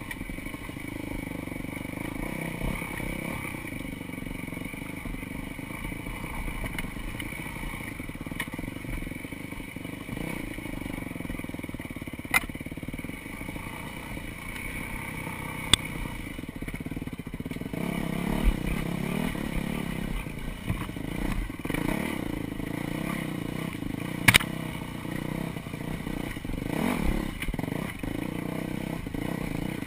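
Dirt bike engine running steadily while riding a rough trail, its note rising and getting louder a little past halfway. A few sharp knocks cut through it, the loudest near the end.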